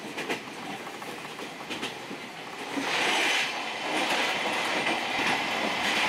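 Wheels of a 12-series passenger coach running on the rails, heard from inside the coach, with a few clicks over rail joints. About three seconds in the running noise grows clearly louder and stays loud, as the train goes into a tunnel.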